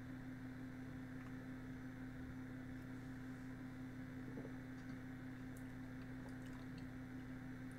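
Quiet room tone with a steady low electrical hum and a few faint clicks.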